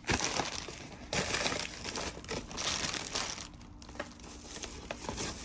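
Plastic packaging crinkling in several irregular bursts as clear plastic bags and a plastic shipping mailer are handled and items are pulled out.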